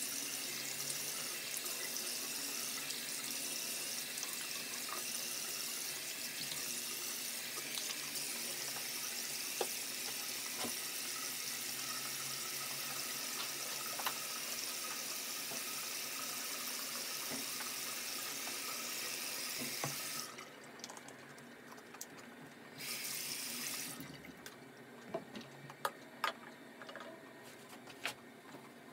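Bathroom sink tap running steadily, with a few light knocks. It is turned off about twenty seconds in, runs again briefly, and then only small clicks and knocks remain.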